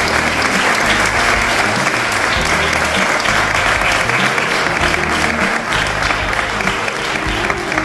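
A roomful of people applauding steadily, with music playing underneath.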